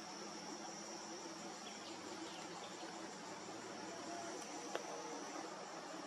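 Insects, such as crickets, trilling steadily at a high pitch in quiet bush, with a single sharp click a little before the end.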